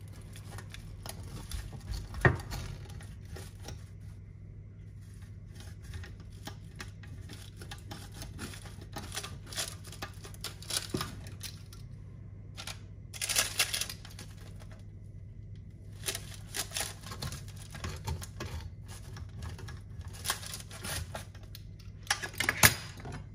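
Pizza wheel cutter rolling through a baked pizza's crust over parchment paper and a metal baking tray: irregular crunching, crackling strokes, with a sharp click about two seconds in. A low steady hum runs underneath.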